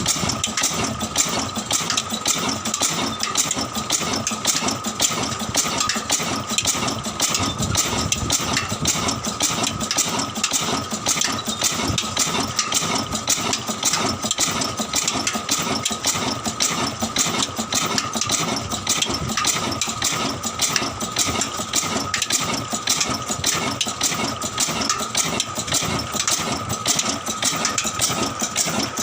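Old engine running steadily at an even speed, a fast, regular beat with a steady high whine over it.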